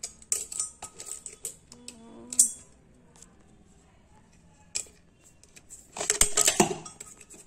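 Steel tape measure knocking and rattling against an iron cauldron: scattered light metallic clicks, then a louder cluster of clinks and rattles about six seconds in.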